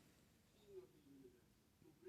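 Near silence: room tone, with a couple of very faint short low tones.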